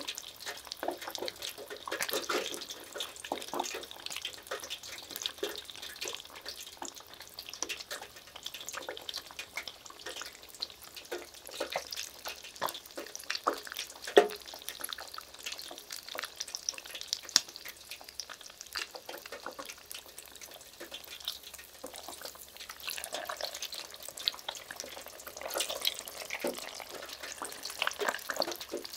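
Battered sweetfish (ayu) deep-frying, the hot oil bubbling and crackling steadily with many small pops. About halfway through there is a sharper crackle as another battered fish is lowered into the oil.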